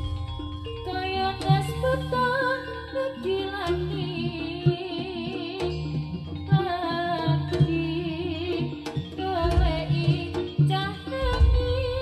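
Live East Javanese jaranan gamelan music: a wavering, ornamented lead melody over repeated kendang drum strokes and steady held metallophone tones.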